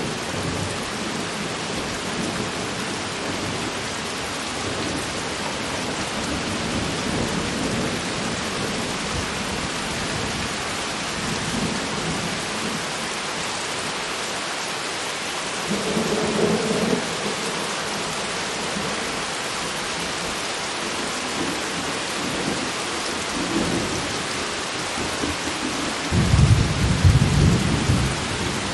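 Steady rain falling during a thunderstorm, with a short rumble of thunder about halfway through and a louder, deeper rumble near the end.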